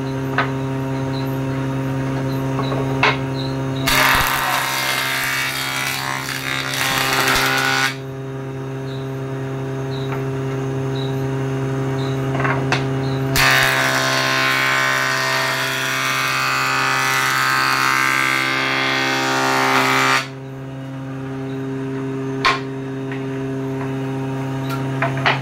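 Electric jointer-planer running with a steady motor hum while a board is fed twice over the spinning cutter block, each pass a loud hiss of wood being shaved: about four seconds long starting about four seconds in, then about seven seconds long from about thirteen seconds in. A few sharp knocks as the board is handled.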